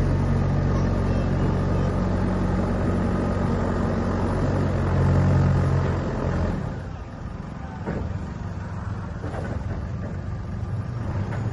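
JCB 3DX backhoe loader's diesel engine running hard, a little louder around five seconds in, then easing off to a much quieter run about six and a half seconds in.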